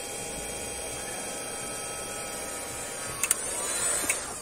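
Hot-air heat gun running steadily, its fan and airflow giving a steady hiss with a thin whine, as it heats the plastic to soften it for welding. Two or three sharp clicks near the end as it is handled.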